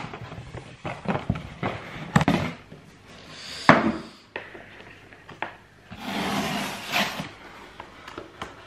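Cardboard shipping box being handled and opened: scattered knocks and taps on the cardboard, with rustling, scraping stretches as the flaps are pulled open, the longest about six seconds in.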